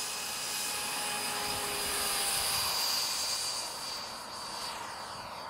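Stumax 110 electric ducted fan on a SAVEX L39 model jet whining at full power during its takeoff roll: a steady high-pitched whine over a rush of air, loudest a couple of seconds in and fading a little near the end as the jet moves away.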